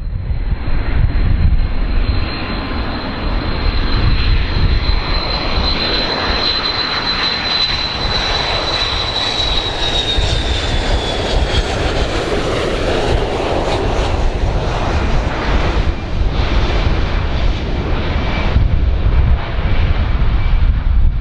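Large airplane's engines running loud, a heavy low rumble under a rushing noise and a high whine. The whine slowly drops in pitch about halfway through.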